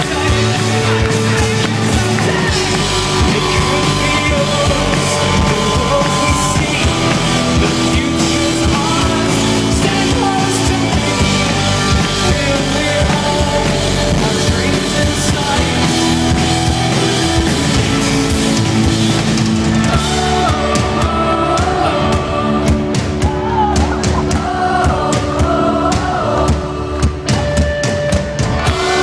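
Indie rock band playing live through a big PA, heard from within the audience: drums, electric guitars, bass and keyboard with a singer. About twenty seconds in the bass drops out and the vocal line stands out over the drums.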